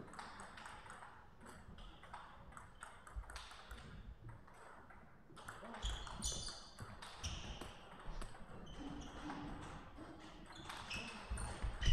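Table tennis rallies: the celluloid-type plastic ball clicks sharply off the rubber bats and the table again and again, with a few short high squeaks in between.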